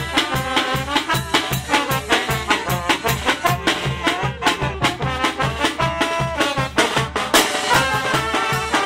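Brass band music: trumpets and trombones carry a tune over a steady drum beat of about four strokes a second.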